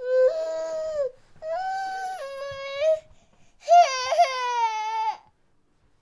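A high-pitched crying voice: three drawn-out cries, each about a second long with short gaps between, stepping up and down in pitch.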